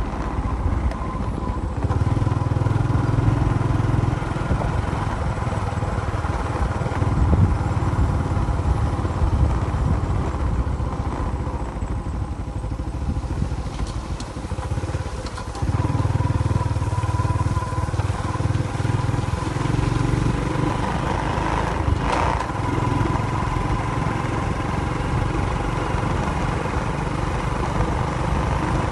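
Engine running steadily, with a low rumble that swells louder about two seconds in and again about halfway through.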